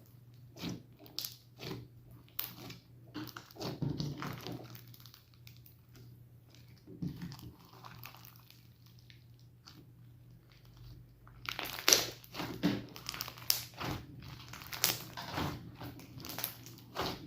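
Slime being squished and handled, played backwards: irregular sticky crackles, pops and clicks, sparse at first and thickening into a busy run of crackles about twelve seconds in.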